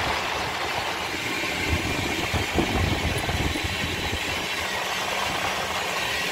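1970s Club Car electric golf cart, run on a 36-volt battery bank, driving along a paved street: a steady rushing running noise with a few low bumps about two and a half seconds in.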